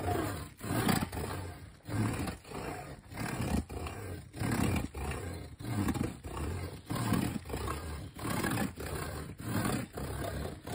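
Worm fiddling: an old turning plow point rubbed across the top of a cut sapling stub, making a low, rough grunting rasp in repeated strokes, about one or two a second. The vibration going down the stub into the ground drives earthworms up to the surface.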